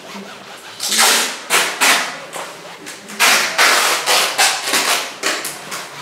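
Fingers rubbing and spreading wet oil paint across a stretched canvas: a run of rough swishing strokes that starts about a second in and repeats several times a second.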